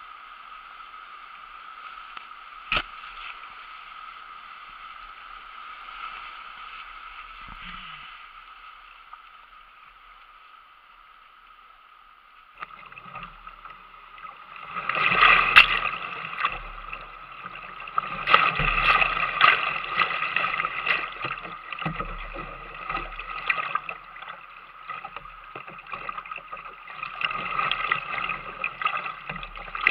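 Whitewater rapids rushing around a kayak, with water splashing against the hull close to the camera. A single sharp knock about three seconds in; from about thirteen seconds the water gets louder and choppier, with repeated splashes.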